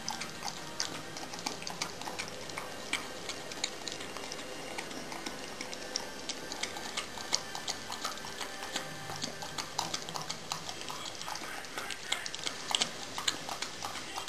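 A Rhodesian Ridgeback lapping yogurt from a bowl: a quick, irregular run of wet licking and smacking clicks, several a second.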